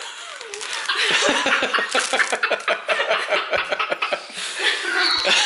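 Laughter: a run of quick repeated laughs, several a second, starting about a second in and lasting to near the end.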